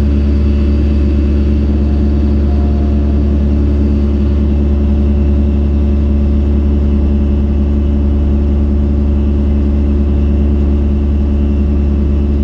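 Excavator's diesel engine running steadily at constant speed with a deep, even hum.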